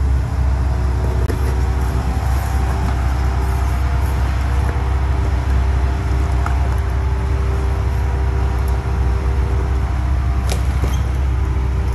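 Steady low rumble of a motor vehicle running, with several held tones over it and a brief click near the end.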